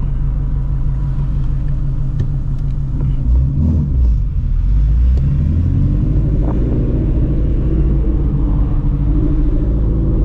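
Shelby GT350's 5.2-litre flat-plane-crank V8 with long-tube headers and a straight-piped exhaust, running at low speed in traffic, then picking up revs about five seconds in and settling into a steady drone.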